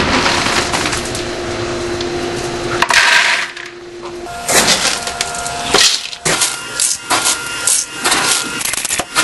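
Dry dog kibble rattling and clattering: a few seconds of dense rattling, a short loud burst about three seconds in, then a string of sharp cracks and knocks.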